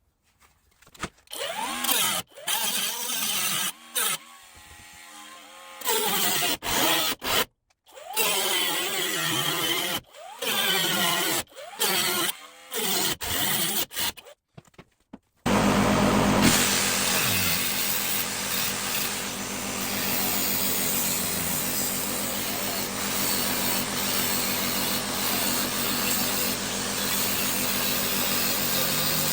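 Handheld power tool cutting the sheet steel of a rusted Beetle door bottom: short runs that spin up and wind down, then about halfway in one long unbroken cut.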